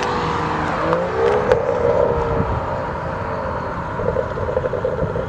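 BMW 335i's N55 turbocharged straight-six with a catless downpipe pulling away. The engine note rises about a second in, then holds and falls off a little, turning fluttery near the end.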